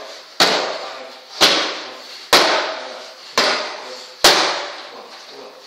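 Boxing gloves smacking into focus mitts held by a trainer: five sharp, loud punch impacts about a second apart, each echoing briefly in the hall.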